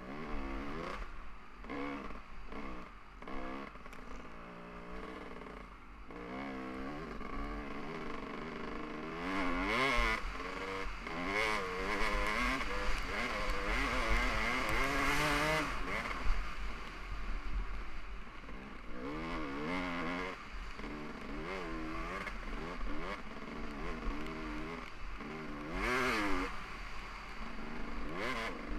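2015 Kawasaki KX450F's single-cylinder four-stroke engine revving up and down through the gears while riding, loudest on a long pull from about 9 to 16 seconds in and again briefly near the end. Wind rumbles on the microphone.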